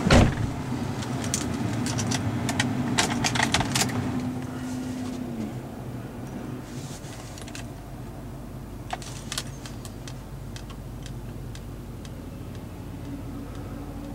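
Keys jangling and clicking for the first few seconds, over a steady low hum inside a pickup truck's cab.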